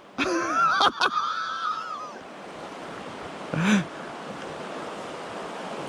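Creek water rushing over a shallow rocky riffle, a steady even rush. It is overlaid by a short, indistinct voice near the start with a couple of sharp clicks, and another brief voice sound a little past the middle.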